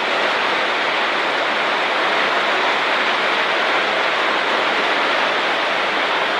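Very heavy rain coming straight down in a steady, dense hiss, without wind.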